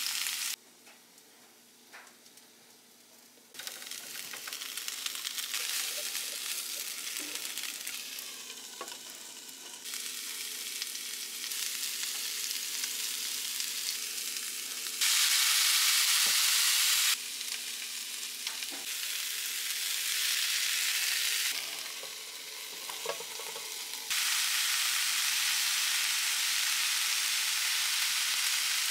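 Broccoli, potatoes and ground beef sizzling as they saute in hot coconut oil in a nonstick frying pan. The sizzle is faint for the first few seconds, then jumps up and down in loudness in steps, loudest for about two seconds halfway through, with a few light clicks.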